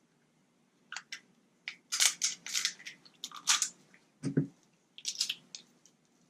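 Crab shell being cracked and snapped apart by hand: clusters of sharp, brittle crackles and snaps, with a short low thump about four seconds in.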